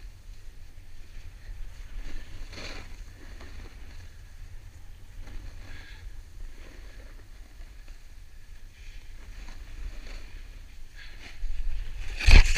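Snowboard sliding down a groomed slope, its edges scraping the snow in repeated hissing passes, over a steady rumble of wind on the microphone. A loud knock near the end.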